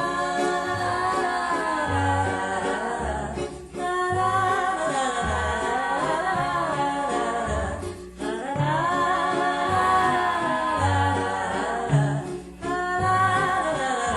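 Music: an early-1950s pop recording with several layered melody lines over a bass stepping from note to note, in phrases about four seconds long.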